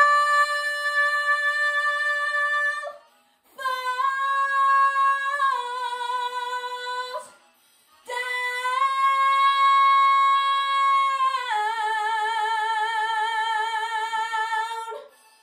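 A young woman's solo singing voice holding three long sustained notes, each ending in a short silence. The last note lasts about seven seconds, steps down in pitch partway and closes with vibrato.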